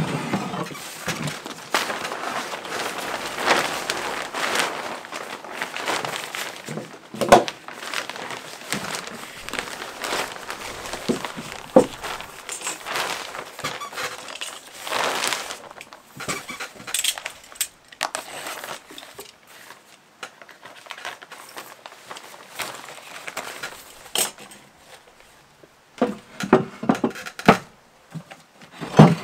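Thin plastic film sheeting rustling and crinkling as it is handled and spread over a wooden roof board, with a few sharp clicks and knocks, several of them close together near the end.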